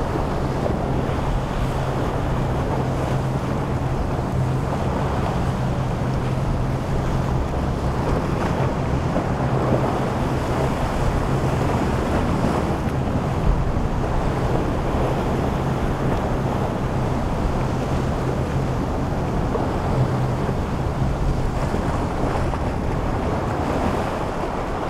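Wind buffeting the microphone over waves and surf, with a steady low drone of a boat's engines running through the inlet that fades in the last few seconds.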